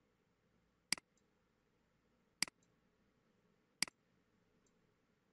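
Computer mouse clicking three times, about a second and a half apart, each click followed by a fainter tick.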